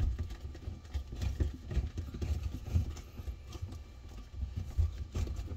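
Faint, irregular low knocks and handling noise as a hand tool turns the nut on a sink faucet's water supply hose at the shutoff valve, working it loose.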